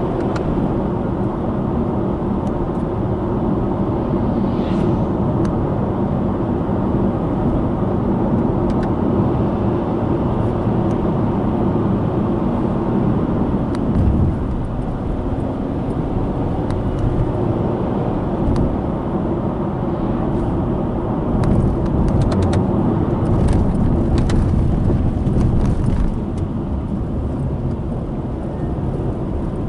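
Subaru Impreza Sport's 1.6-litre FB16 flat-four engine and tyre noise while the car drives downhill at a steady pace, with a few faint light clicks in the second half.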